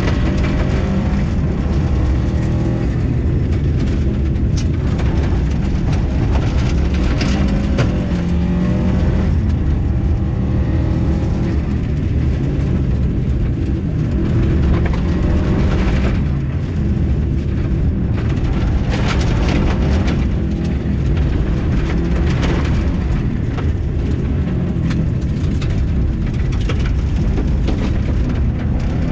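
Rally car engine driven hard, its pitch repeatedly climbing and dropping through gear changes, heard from inside the cabin. Frequent clicks and knocks of gravel strike the car over the steady road noise of the loose, icy gravel surface.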